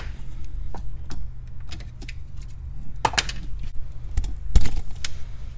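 Handling of parts and tools among loose bolts in a cardboard parts box: scattered metal clicks and rattles, loudest about three and about four and a half seconds in, over a steady low hum.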